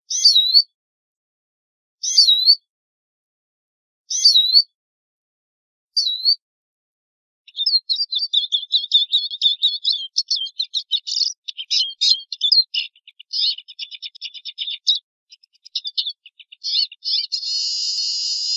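Eurasian siskin calling and singing: four separate high, quickly sliding whistled call notes about two seconds apart. Then, from about a third of the way in, a fast, continuous twittering song that ends in a drawn-out buzzy wheeze near the end.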